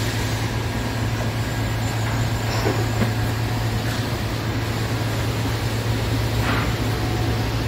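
Steady drone of industrial machinery: a constant low hum under an even rushing noise.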